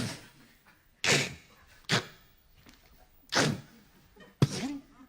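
A man making sound effects with his mouth into a microphone: five short, sharp, hissing bursts with pauses between.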